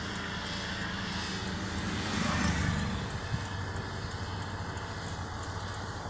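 Motor vehicle engine running with a steady low drone, swelling louder for about a second around two seconds in and then settling back.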